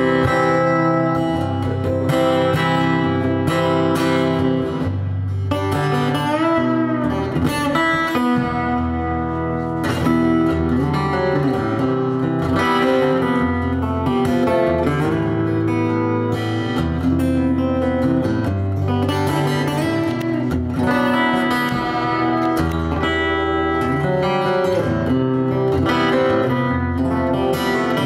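Solo acoustic guitar played live: a continuous instrumental passage of chords and notes at a steady level.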